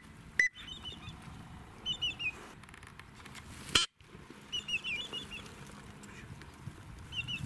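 Teal whistling: clusters of quick, high peeping notes come in several bursts. Two sharp clicks break in, the louder one just before the middle.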